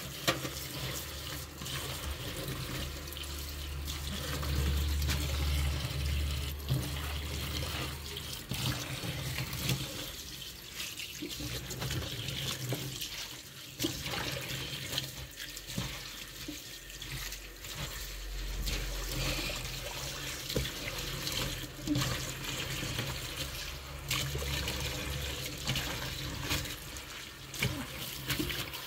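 Kitchen tap running into a stainless steel sink while hands swish, splash and squeeze wet wild garlic shoots in the water, with small clicks and knocks of handling. A low hum comes and goes underneath.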